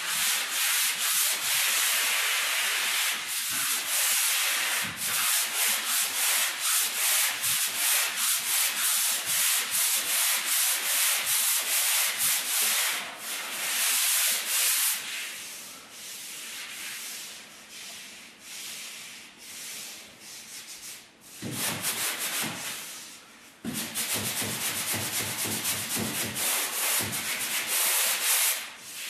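Hand sanding block rubbed back and forth over dried joint compound on a drywall seam, in quick rhythmic strokes of about three a second. The strokes turn lighter about halfway through, then grow loud again several seconds later.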